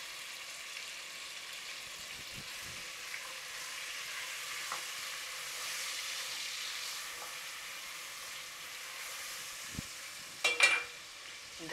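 Tomatoes, garlic-ginger paste and spices frying in hot oil in a pot, a steady sizzle while they are stirred, with a few soft knocks and one sharp ringing clink near the end.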